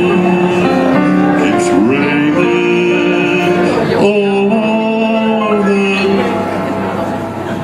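Slow ballad music with long held notes and chords.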